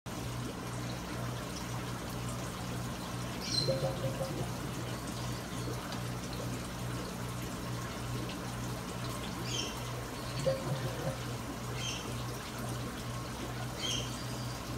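Koi tank's water circulation: a steady, evenly pulsing pump hum under trickling water. Four short high chirps come at intervals over it.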